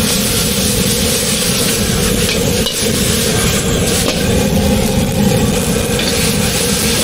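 Fried rice sizzling and being stir-fried in a wok, over a loud, steady rushing noise, with a couple of faint clinks from the spatula on the wok.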